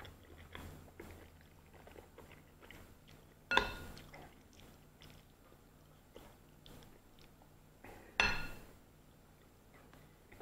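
Metal spoon striking and scraping a ceramic bowl twice, about 3.5 s and 8 s in, each strike ringing briefly. Soft, faint chewing and mouth sounds of eating macaroni and cheese come between.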